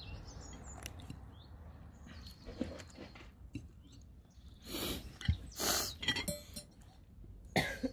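A person biting into and chewing a piece of barbecue chicken close to the microphone, with a few louder short mouth noises about five to six seconds in and near the end.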